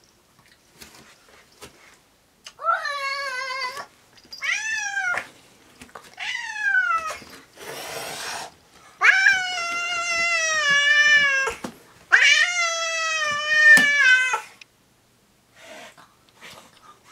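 Domestic cat yowling in a tense, territorial exchange with a strange cat outside: three shorter wails, a brief hiss-like burst, then two long drawn-out yowls that sag in pitch at the end.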